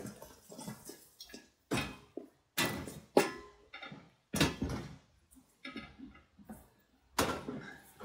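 A series of separate knocks, clunks and scrapes as a hand truck is set against a freestanding dishwasher and the dishwasher is tipped back onto it. There are about five, the loudest about three seconds in.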